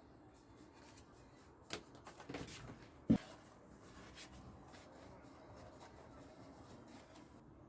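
A few short light knocks, the loudest about three seconds in, over quiet room tone.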